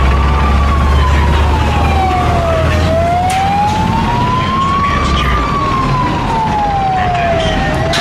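Vehicle siren wailing in a slow rise and fall, each full cycle taking about five seconds, over a low engine rumble that fades about five seconds in.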